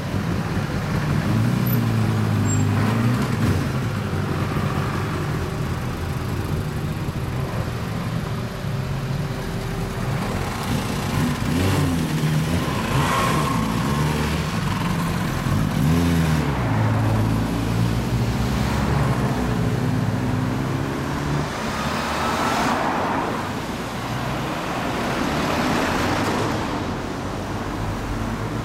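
Motorcycle engines, a 1990 Yamaha TZR250 two-stroke twin and a Kawasaki Ninja ZX-10R, running and revving as they pull away, with rising revs twice around the middle. Road traffic passes near the end.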